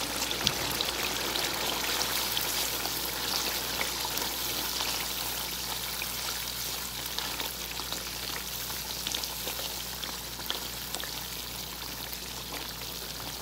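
Chicken pieces frying in a thin soy sauce and ketchup sauce in a pan, sizzling steadily with small crackles and spits. The sizzle eases slightly toward the end.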